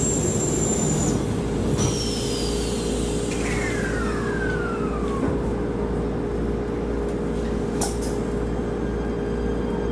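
Shinano Railway SR1 series electric train running, heard from inside the car: a steady rumble and hum under a thin electronic whine from the motor inverter that slides down in pitch. There is a brief click about eight seconds in.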